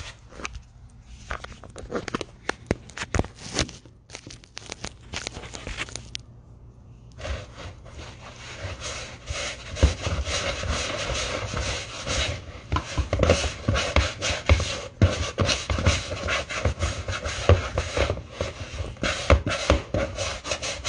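Hands kneading dough in a bowl: irregular rubbing and scraping with soft knocks, patchy at first, then steady and louder from about seven seconds in.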